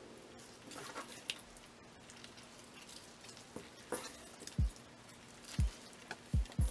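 Wet squishing and rustling of hands working seasoning paste into salted napa cabbage leaves in a stainless steel bowl, with scattered small clicks and a few dull thumps in the second half.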